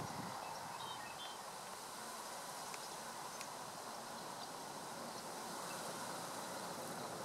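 Steady outdoor background hiss with a few faint, brief bird chirps.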